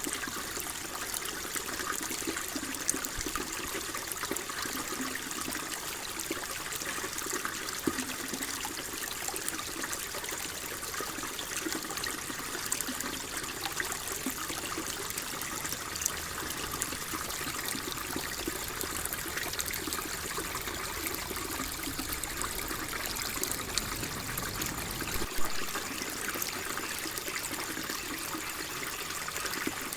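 Water flowing and trickling steadily, an even splashing rush with a few small splashes standing out.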